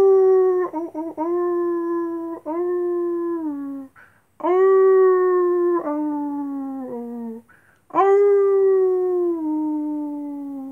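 Long, drawn-out howls in three bouts, with brief breaths in the gaps. Each bout holds a steady pitch, then steps down and slides lower at the end.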